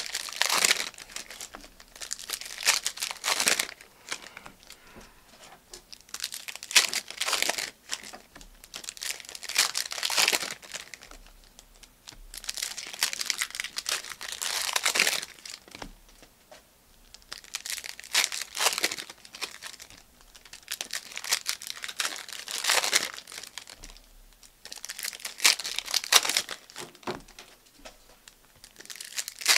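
Plastic trading-card pack wrappers crinkling and tearing as packs are ripped open and the cards handled. The sound comes in repeated bursts every few seconds.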